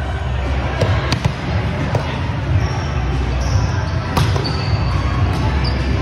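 Indoor volleyball play on a hardwood gym floor: a volleyball being hit and bouncing, several separate impacts with the loudest about four seconds in, over the steady low hum of a large hall. Short high sneaker squeaks and indistinct voices mix in.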